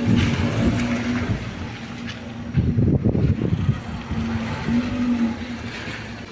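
Fiat Uno engine idling, with a low rumble and rumbling noise on the microphone that swells briefly about two and a half seconds in.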